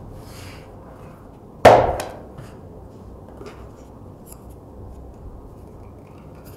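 Leather pieces handled and laid out on a cutting mat, with faint rustling and small ticks. One sharp knock about one and a half seconds in, the loudest sound, rings out briefly.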